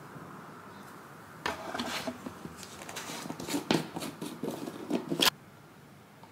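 Hands handling a plastic tub of powder and opening it: a string of rustles and sharp clicks, starting about a second and a half in and breaking off abruptly a little after five seconds.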